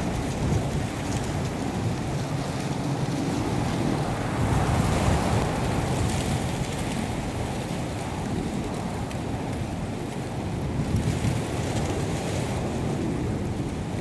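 Steady wind blowing across the microphone, a low rushing noise that swells and eases in gusts.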